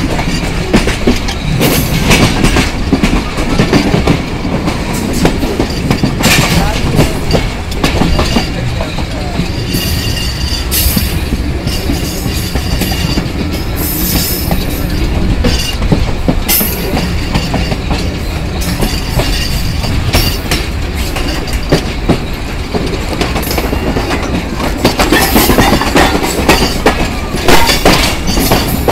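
Passenger train running at speed, heard from beside an open coach window: a steady rumble of the wheels on the rails with irregular clicks and knocks from the wheels and running gear.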